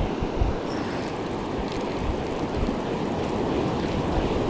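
Surf washing on the beach, a steady rushing noise, with wind buffeting the microphone.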